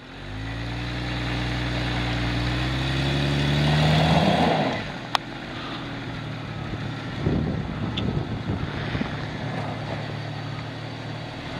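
Lifted Jeep Cherokee XJ's engine revving up, rising steadily in pitch and loudness for about four seconds, then dropping back to a lower, uneven running. A single sharp click about five seconds in.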